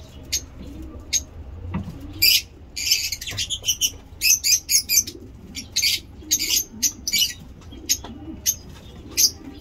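Lovebirds chirping: quick runs of shrill, high-pitched chirps and chatter in short bursts, coming thick and fast after the first couple of seconds.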